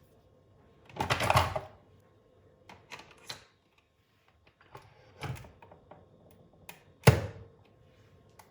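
Handling clicks and knocks: a short rattling knock about a second in, a few light clicks, another knock, then a sharp loud click near the end, over a faint steady hum.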